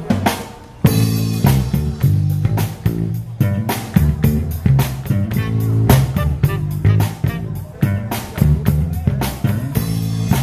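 Live rock band playing an instrumental passage with electric guitar, bass guitar and drum kit. After a brief drop just after the start, the full band comes in about a second in with a repeating bass line and a steady drum beat.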